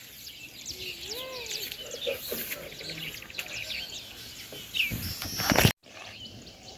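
Small birds chirping and twittering repeatedly in the open, with a lower gliding call about a second in. A louder burst of noise near the end cuts off suddenly.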